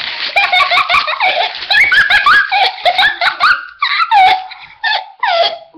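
A child laughing and squealing in quick, high-pitched bursts that rise and fall.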